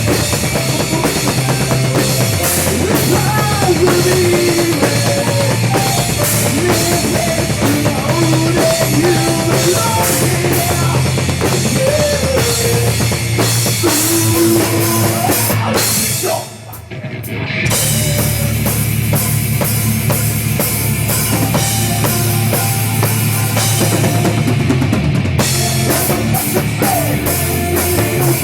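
Rock music with a full drum kit and a wavering melodic lead line over a steady beat. It drops out briefly for about a second just past halfway, then comes back in.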